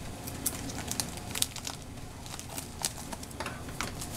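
Plastic mailer bag being crinkled and pulled at by hand while struggling to open it: irregular crackles and rustles.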